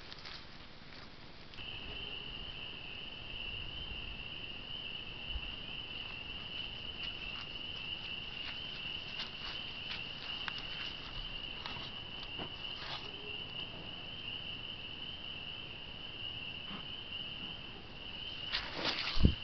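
A steady high-pitched trill or whine runs on under scattered faint ticks and rustles, and near the end an animal nosing the trail camera knocks and brushes against it several times, loudly.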